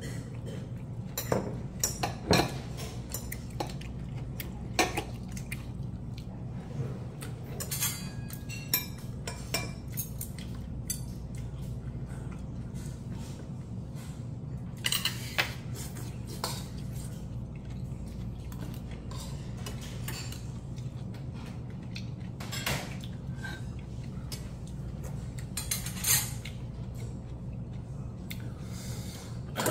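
Metal chopsticks and a spoon clinking and scraping against a stainless steel bowl of barley rice and vegetables, in scattered irregular clinks over a steady low hum.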